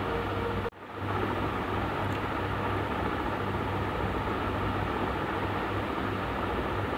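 Curry leaves, cumin and mustard seeds sizzling in hot oil in a steel pan, a steady hiss. It cuts out for a moment just under a second in, then carries on.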